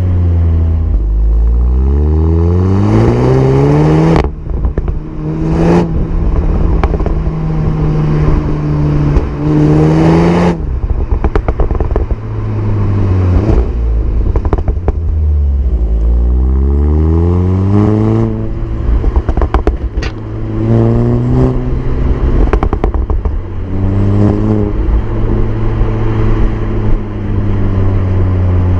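SEAT Leon Cupra 300's turbocharged 2.0-litre four-cylinder engine accelerating repeatedly: the revs climb and fall back sharply several times, as at gear changes. There is a short sharp crack at a couple of the drops.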